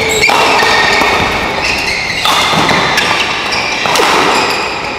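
Badminton play in an indoor hall: sharp racket-on-shuttle hits and thuds on the court over loud, steady crowd noise.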